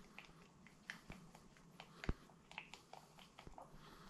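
A stirring stick scraping and tapping inside a plastic mixing cup as liquid resin is mixed by hand: faint, irregular scrapes and clicks, with one sharper knock about two seconds in.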